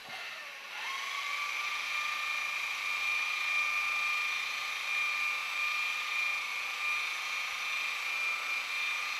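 Electric rotary polisher with a foam buffing pad spinning up in the first second, then running at a steady high whine as it buffs compound on a wet-sanded, clear-coated car hood.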